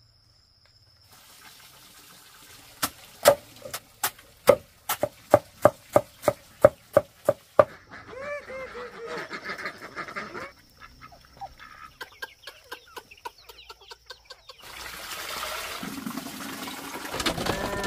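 Domestic fowl calling: a quick run of about sixteen sharp calls, about three a second, followed by a few longer drawn-out calls and louder, rougher calling near the end.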